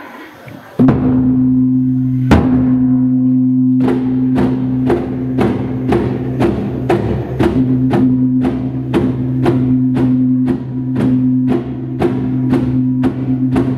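Phungrol, the Maring tribe's large laced, hide-headed drums, beaten with sticks: a single strike a couple of seconds in, then a steady beat of about two strikes a second. A steady low ringing hum sounds underneath throughout.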